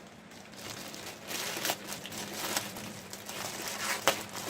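Plastic mailer bag crinkling and rustling as it is cut open with a knife, with a sharp click about four seconds in.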